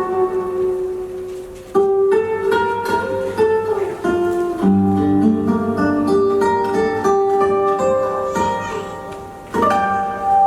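Instrumental music led by plucked strings, playing a melody of struck notes that ring on. The music swells back in with louder chords about two seconds in and again near the end.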